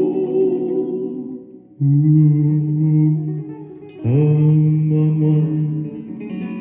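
Live bluegrass gospel music: the band holds a long chord that fades out, then two more long held chords of a couple of seconds each, the last sliding up into pitch as it starts.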